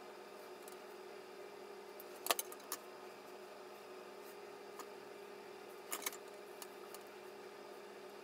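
Flat iron clicking as its plates are clamped and opened on sections of hair: a quick cluster of sharp clicks about two seconds in and two more about six seconds in, over a steady low hum.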